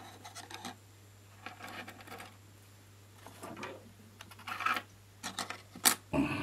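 Small handling noises of hard-disk parts and tools on a work surface: scattered light clicks, taps and scrapes, with a sharper click about six seconds in, over a faint steady low hum.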